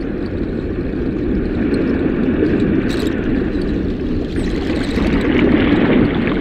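Underwater ambience: a steady, low rushing rumble of water, swelling slightly near the end.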